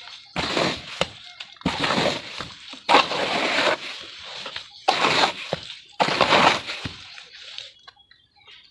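Dry sand-and-cement shapes dipped into water and breaking apart, in five splashing, crumbling bursts about a second each. Quieter after about seven seconds.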